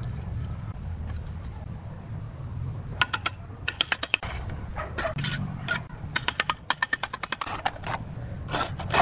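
Bricklayer's steel trowel tapping bricks down into wet mortar: runs of quick, light clicks, several a second, starting about three seconds in. A low steady rumble lies underneath.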